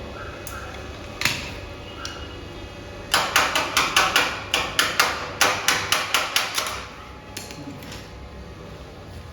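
Hammer blows during fitting work on the lock and steel gate: one sharp knock, then a quick run of about fifteen blows at some four a second for nearly four seconds, then two lighter taps.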